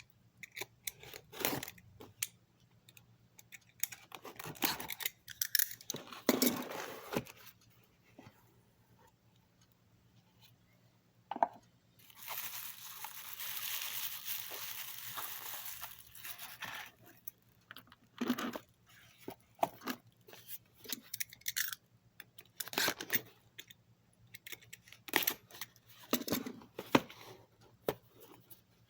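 Packing tape being cut and torn off a cardboard box, with crinkling of the wrapping and scattered scrapes and clicks of handling. One steadier stretch of tearing lasts about five seconds in the middle.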